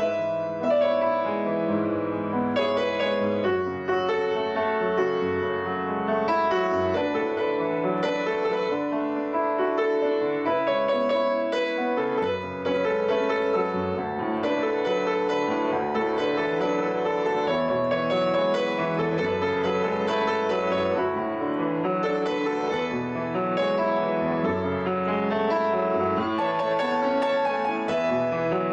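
Background music led by piano, a continuous flow of notes.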